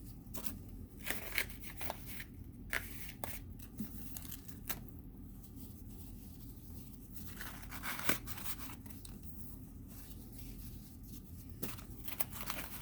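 Paper crinkling and rustling in short, irregular bursts as toilet paper is folded and stuffed into a taped paper pouch, with a longer rustle about eight seconds in.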